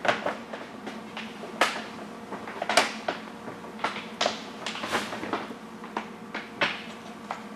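White backing paper being peeled off a vinyl wrap sheet and handled: irregular crinkling and sharp crackles, the loudest about a second and a half and nearly three seconds in.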